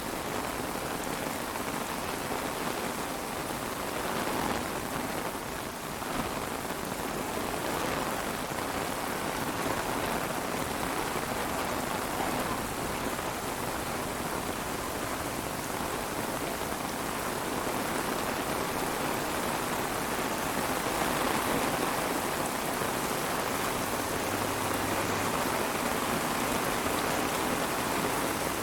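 Steady rain falling and pattering on a surface.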